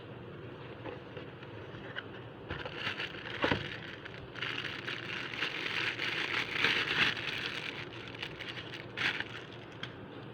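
Packaging being handled and opened: rustling, crinkling and scraping in bursts through the middle, with one knock about three and a half seconds in, over a steady low hum.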